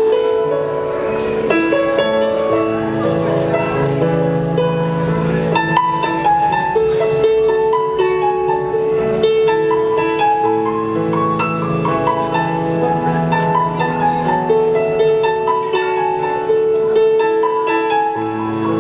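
Solo piano music: a flowing melody in the middle and upper range over sustained low notes, played without a break.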